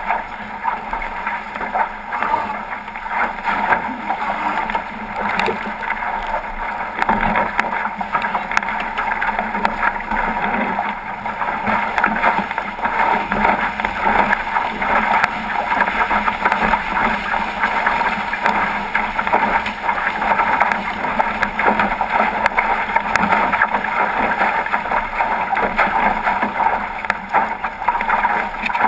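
Water rushing and splashing along the hull of a 505 sailing dinghy moving fast under sail through chop, mixed with wind buffeting the microphone; a steady, unbroken rush.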